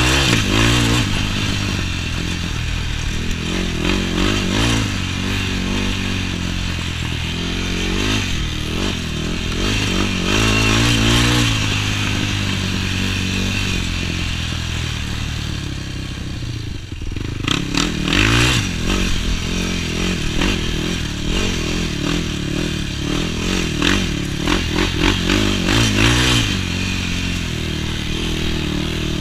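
Yamaha YFZ450 sport quad's single-cylinder four-stroke engine under hard riding, the throttle opening and closing so the revs rise and fall again and again. About two-thirds of the way through the revs drop off briefly, then climb sharply.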